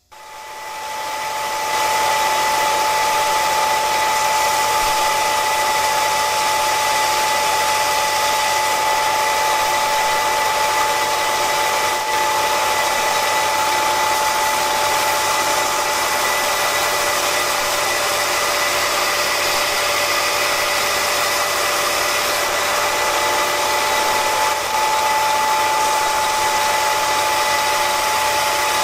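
Belt grinder switched on, its motor and abrasive belt spinning up over about two seconds, then running steadily with a whine. Near the end a steel twist drill bit is held against the running belt to resharpen its cutting edge.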